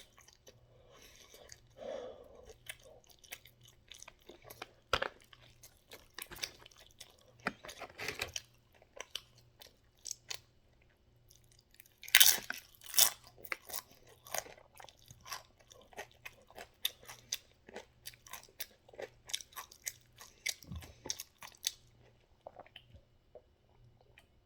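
A person chewing a mouthful of taco close to the microphone: irregular crunching and wet smacking bites, with a short pause and then the loudest crunches about halfway through.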